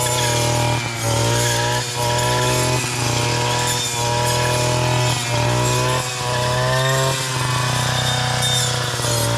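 Husqvarna two-stroke brushcutter with a metal blade running at high revs and cutting through brush. Its pitch sags and recovers about once a second as each sweep of the blade takes a load.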